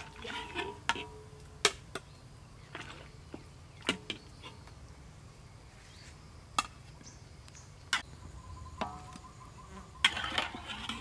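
Metal spoon clinking and scraping against a wok and a plate as pieces of braised pork leg are lifted out and served: single sharp clinks a second or more apart, busier near the end.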